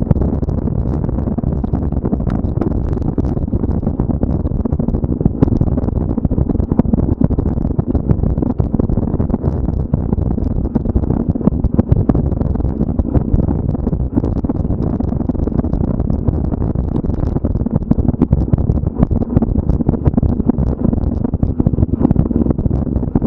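Steady low rumble with many small knocks and rattles: the noise of moving fast along a cross-country trail.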